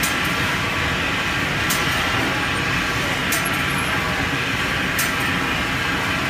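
Kuko GH-3015CM continuous-motion sealer and SF-5030LG shrink tunnel running, a steady dense machine whir from the blowers and conveyors. A short high click comes about every second and a half.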